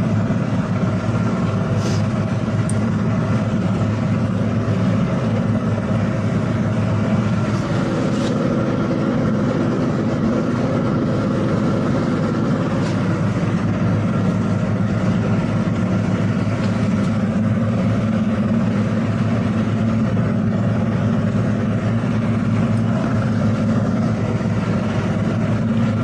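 A towboat's outboard motors running steadily at low speed under the load of a boat on a tow line.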